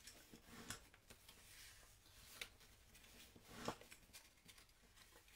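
Faint rubbing and rustling of patterned paper as a bone folder is drawn along its score lines to crease them, with a few short scrapes, the loudest about three and a half seconds in.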